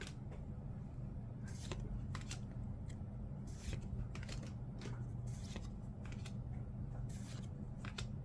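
Trading cards sliding against each other as a pack is flipped through one card at a time: short papery swishes, several at uneven intervals, over a steady low hum.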